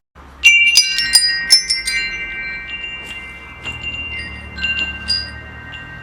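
Metal wind chimes struck in a quick flurry about half a second in, several high tones ringing on long after the strikes, then a few softer, scattered strikes.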